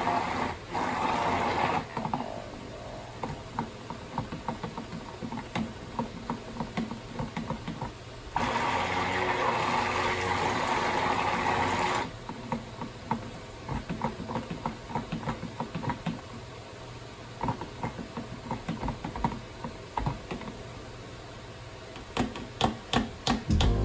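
Stick blender running in short bursts in a small plastic cup of cold process soap batter: once at the start, then again for about four seconds from about eight seconds in. Between bursts the blender head clicks and knocks against the cup as it is stirred by hand, with a run of sharper knocks near the end.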